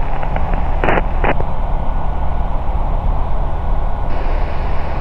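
Ikarus C42 microlight's engine and propeller droning steadily in cruise, with two short bursts of noise about a second in.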